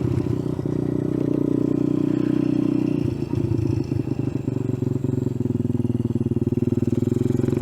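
An Icebear Champion mini bike's 125cc four-stroke single running through a cheap aftermarket exhaust, fed by a 22mm carburettor. It holds a steady note, then from about three seconds in the beat turns uneven and pulsing.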